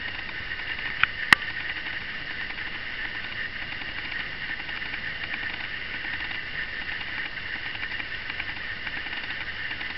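Steady high hiss with a faint whine, over faint rapid soft ticking that fits a cat eating from a bowl; two sharp clicks about a second in, the second one the loudest sound.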